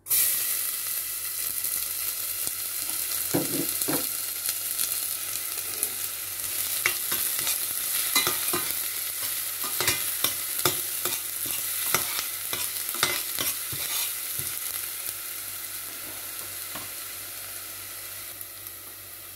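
Minced garlic sizzling in hot oil in a stainless steel pot. The sizzle starts suddenly as the garlic hits the oil and eases toward the end. In the middle, a metal spoon clinks and scrapes against the pot as it is stirred.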